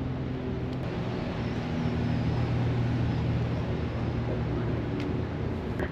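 A motor vehicle's engine running with a steady low hum, amid road traffic noise.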